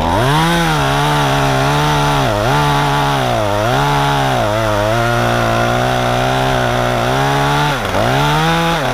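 Chainsaw running at high revs, its pitch sagging and recovering several times as it cuts through the top of a maple tree.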